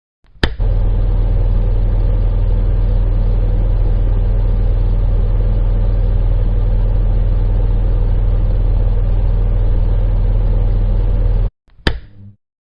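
Portable electric fan switched on with a click, then running steadily with a loud low motor hum and airy whir. Near the end it cuts off abruptly, followed by another click and a brief burst of the same running sound.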